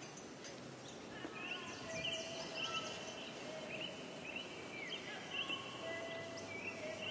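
Outdoor ambience: a steady hiss with short bird chirps and calls coming in about a second and a half in and repeating at irregular intervals.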